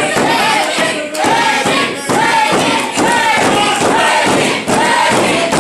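Wrestling crowd chanting and shouting in rising-and-falling calls, with thuds from the ring.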